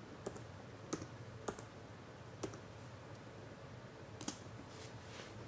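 A few faint, separate keystrokes on a laptop keyboard with uneven pauses between them, as a short pairing code is typed in.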